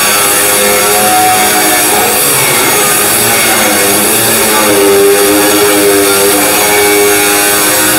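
Angle grinder running under load, its abrasive disc grinding on steel sheet metal along a welded seam. The motor's whine dips and rises in pitch as the disc is pressed in and eased off.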